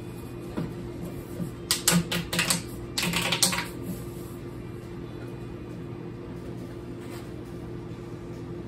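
Quick flurries of plastic clicking and rattling as a corrugated plastic hose is bent and fitted into a plastic tote, in two bursts around two and three seconds in, over a steady low hum.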